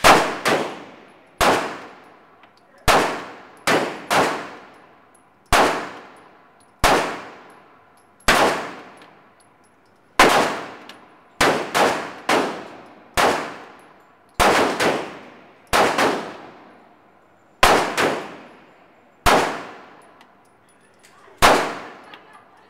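Semi-automatic pistol fired again and again, about twenty shots at an uneven pace of roughly one every second, some in quick pairs. Each shot is a sharp crack with a ringing echo from the enclosed indoor range.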